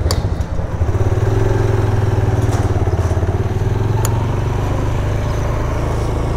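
Motorcycle engine running steadily with a low, even note as the bike rides along.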